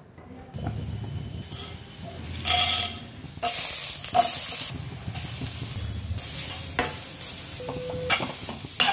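Food frying in hot oil in a kadai: a tempering of mustard seeds, dal and green chillies sizzling as onion goes in, then grated beetroot being stirred and fried. The hiss jumps in level at several sudden cuts, with a few light knocks of the spoon on the pan.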